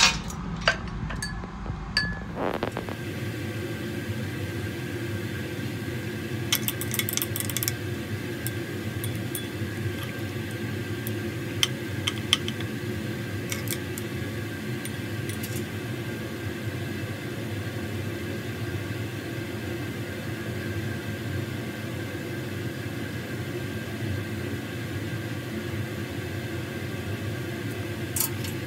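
Steady ventilation fan hum in a chemistry lab. A few light clinks of a glass stirring rod against a glass beaker during stirring come in the first half.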